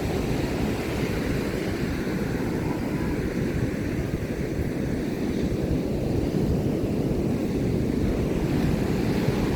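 Steady wash of surf on the beach, mixed with a low, even rumble of wind on the microphone.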